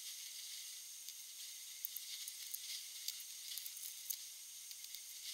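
Faint handwork on resin-wet carbon fibre cloth in a mould: soft scattered ticks and dabs from a brush working the resin in and scissors trimming the cloth, over a steady high hiss.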